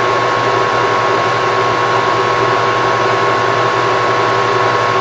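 Air conditioner running steadily: an even rushing fan noise with a constant low hum and a thin high whine over it, about 65 dB at the phone. The owner finds the unit very noisy.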